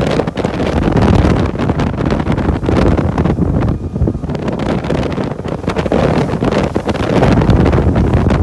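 Heavy wind buffeting a handheld phone microphone aboard a 45-foot diesel center console boat cruising at about 35 knots across wakes. It is a loud, gusty rumble that rises and falls irregularly.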